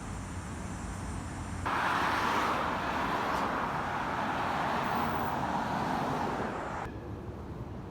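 Outdoor street noise: a steady rushing hiss that turns much louder about two seconds in and drops back abruptly near the end.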